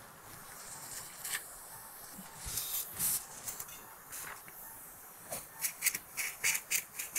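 Surgical suction tip drawing fluid from an open knee wound: irregular hissing bursts, a few short ones in quick succession near the end.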